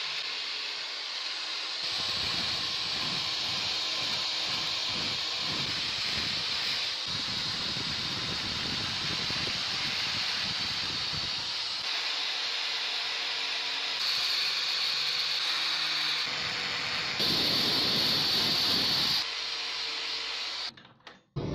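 Angle grinder running a felt buffing wheel against a steel pruner handle, with a steady high motor whine and a rougher rumble in the stretches where the wheel bears on the metal. It cuts off abruptly near the end.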